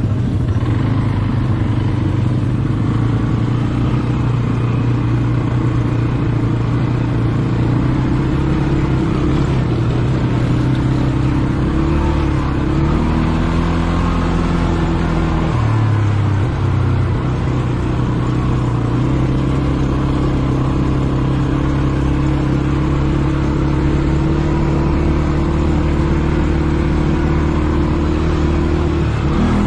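ATV engine running while riding, its note shifting up and down with the throttle about halfway through and again near the end.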